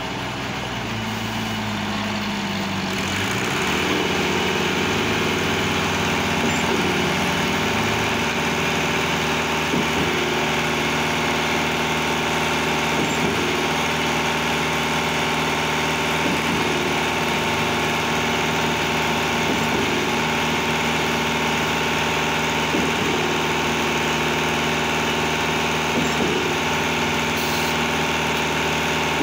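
Steady drone of a concrete batching plant and trailer concrete pump running together while concrete is discharged into the pump hopper, growing louder over the first few seconds. A faint knock repeats about every three seconds.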